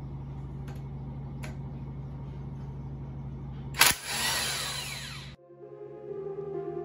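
Electric impact wrench loosening the crankshaft pulley bolt of a VW AP engine: about four seconds in, a sharp hit and then roughly a second and a half of the wrench running, which stops abruptly. Before it, a steady low hum; near the end, background music begins.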